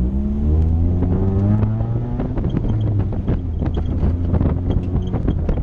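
Honda Civic hatchback's engine accelerating from inside the car, its pitch rising over the first two seconds, with wind noise on the microphone. From about two seconds in, rapid irregular clicks and taps run over the engine.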